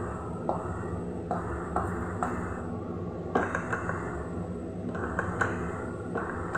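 Fried okra slides from a kadai into a simmering curry in a pressure-cooker pot and is stirred in with a wooden spoon. Soft scrapes and scattered knocks of the pan and spoon against the pot sound over a steady low hum.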